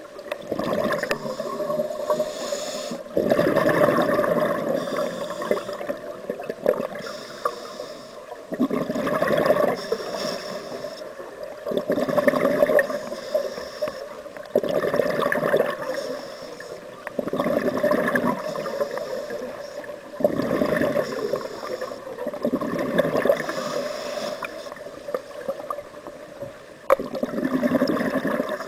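Scuba diver breathing through a regulator underwater: a regular cycle of regulator breaths and gurgling bursts of exhaled bubbles, about one every three seconds.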